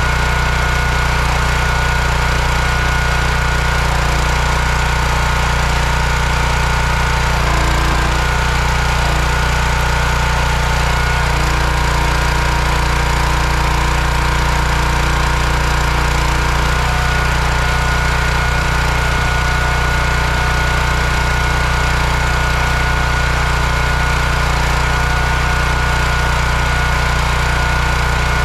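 Small petrol engine of a hydraulic log splitter running steadily at constant speed. Its note changes for several seconds about a third of the way in as the hydraulic ram works a log.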